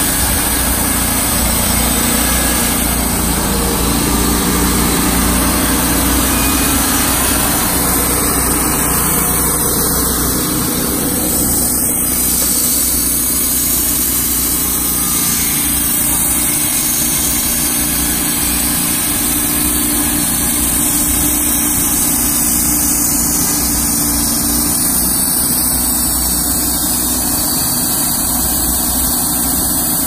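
Wood-Mizer LT35 hydraulic portable sawmill running and sawing a log: a steady, loud engine drone with the band blade cutting through the wood.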